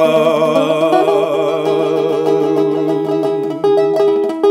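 A man singing one long held note with vibrato over an acoustic guitar; the note ends about three and a half seconds in and the guitar goes on alone with single plucked notes.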